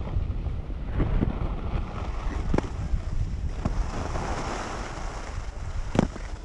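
Wind buffeting the microphone of a handheld 360 action camera while skiing down a groomed piste, with skis hissing over the snow, swelling about four seconds in. A few sharp knocks come through, the loudest about six seconds in.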